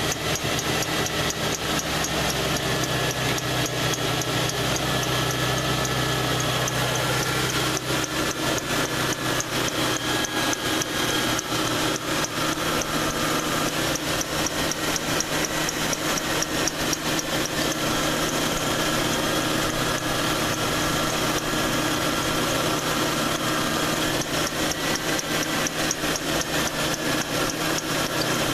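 Ford Crown Victoria's 4.6-litre V8 idling with the hood open, a fast ticking over the running belt. The A/C compressor clutch cycles on and off, and the engine and belt note shift as it does, about eight seconds in and again later. The engine speeds up once the compressor pulley stops, which the owner cannot explain.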